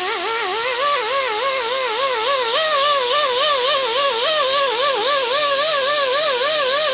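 Pneumatic right-angle die grinder with a small abrasive disc sanding the steel band surface of a 4L60-E low/reverse drum: a steady high whine over air hiss, its pitch wavering up and down several times a second as the disc is pressed and swept side to side. The sanding takes the glaze off the drum where the band rides.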